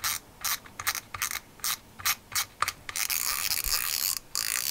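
Front drag knob of a spinning fishing reel being unscrewed by hand, its clicker ratcheting in short runs of clicks. About three seconds in the clicks merge into a faster continuous run. The drag is being backed off so the spool can come off.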